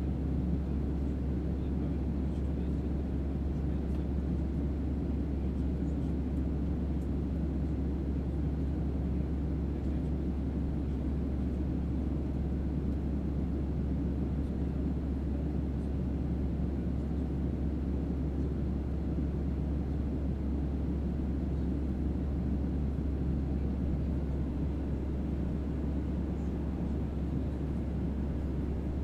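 Airplane cabin noise in flight: the steady hum of the engines and airflow, a low even drone with most of its weight in the bass and no change throughout.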